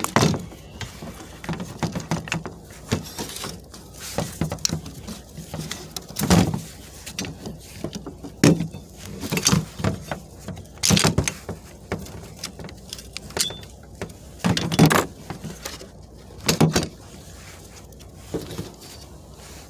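A wrench and the steel wiper linkage arms of a 2006 Chevy Cobalt wiper motor assembly clinking and knocking as the transmission arm is unbolted from the motor's crank and pulled free. The metal clicks and clanks are irregular, with a handful of louder knocks.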